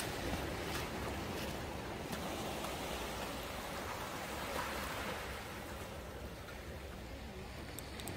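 Small sea waves washing against a rocky shore, a steady wash of water, with a few faint clicks near the end.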